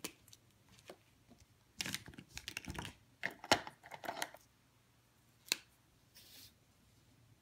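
Markers and other art supplies being handled on a desktop: a flurry of small clicks and taps, then one sharp click and a brief scratchy rustle near the end.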